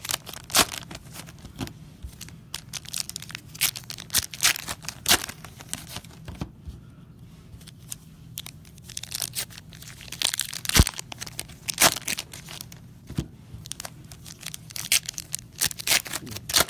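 Trading-card packs and cards being handled by hand: foil wrappers crinkling and tearing, and cards snapping and sliding down onto a table in irregular sharp clicks. A steady low hum runs underneath.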